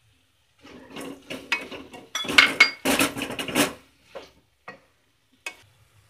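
A spatula scraping and clattering against a kadai as sliced vegetables are stir-fried. Quick scraping strokes run for about three seconds, then a few separate single taps.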